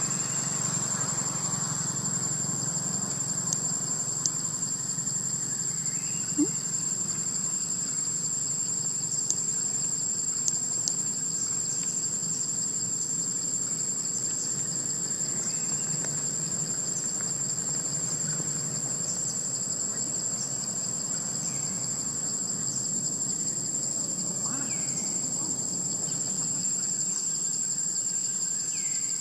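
Steady, high-pitched drone of a chorus of calling insects, with a few faint clicks.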